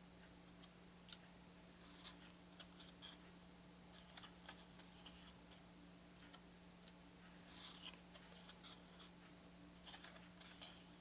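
Faint handling of small cardboard game cards: short soft clicks and slides as cards are picked off a stack and laid down one after another, at an uneven pace, over a low steady hum.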